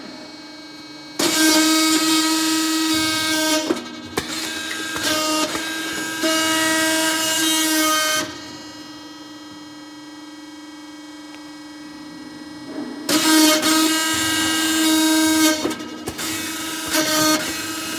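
Puffed rice cake popping machine running: a steady humming tone throughout, with two long spells of loud hissing about five seconds apart, the first starting about a second in and the second near the end.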